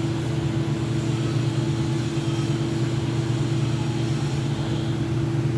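An engine running steadily at constant speed: a low, even hum that does not change.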